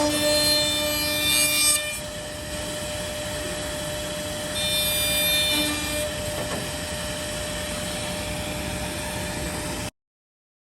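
Horizontal CNC drilling-milling machine running, its spindle giving a steady high whine, with two louder stretches of the cutter working into the edge of a wood panel, one at the start and one about five seconds in. The sound cuts off abruptly near the end.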